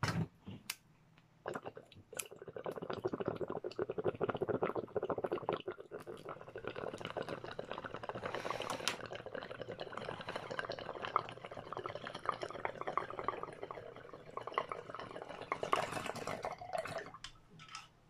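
Water bubbling in a glass bong as smoke is drawn through it: a fast, steady gurgle that runs for about fifteen seconds, swells near the end, then stops. A couple of sharp clicks come just before it.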